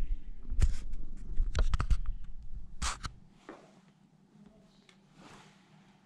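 A cat brushing and bumping against a camera on the floor: scuffing rubs and a few sharp knocks close to the microphone, dying away to near quiet about three seconds in.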